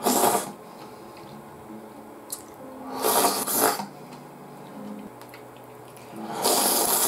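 A person slurping ramen noodles and broth from the bowl, three noisy slurps about three seconds apart, the last one the longest.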